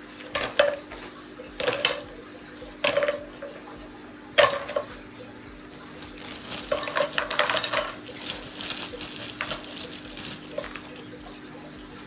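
Dried lotus seed pods and a palm ring dropped into an empty metal saucepan, landing in a series of separate knocks. Then a handful of small dried alder cones is tipped in, rattling and clattering against the pan for a few seconds.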